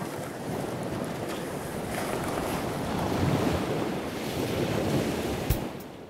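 Sea water washing around a sailing catamaran, with wind buffeting the microphone, swelling and easing. A single sharp knock comes near the end.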